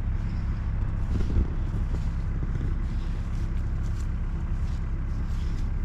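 Diesel engine of heavy earthmoving equipment running steadily, the sound mostly low-pitched.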